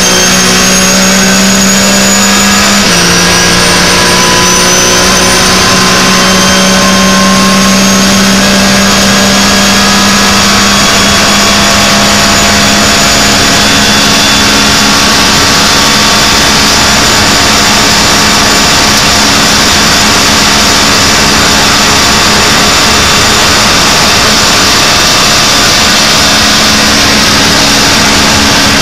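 Porsche 911 GT3 Cup's naturally aspirated flat-six race engine heard from inside the cockpit at full throttle. Its pitch drops suddenly with an upshift about three seconds in, then climbs slowly and steadily. A steady rush of wind and road noise runs underneath.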